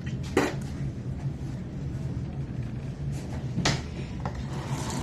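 A few brief household knocks and clicks, about half a second and nearly four seconds in, over a steady low hum.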